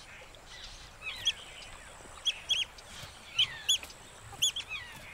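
Otters giving high-pitched chirping alarm calls: short arched chirps, mostly in pairs about once a second, mixed with quick falling squeaks.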